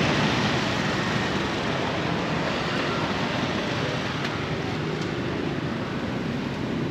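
Steady street ambience: a continuous hiss and rumble of passing traffic and general bustle, with no clear single event standing out.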